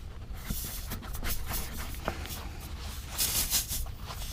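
Tire reamer tool being forced and twisted into the nail hole in a tubeless tire's tread: irregular scraping and rubbing, with a louder rasp about three seconds in.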